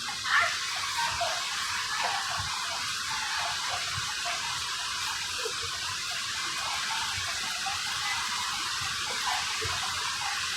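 Steady hiss inside an Alstom Movia R151 metro car standing at a station with its doors open, the rush of its ventilation and air-conditioning.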